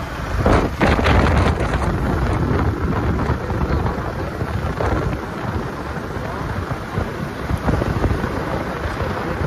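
Wind buffeting the microphone on a Yamaha R15 V4 motorcycle cruising at about 50 km/h: a heavy, rumbling rush of noise, gustier in the first couple of seconds.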